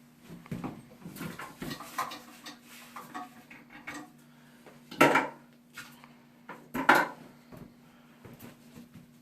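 Hard objects clinking and knocking as toilet-tank parts and tools are handled, with two sharper, louder knocks about five and seven seconds in.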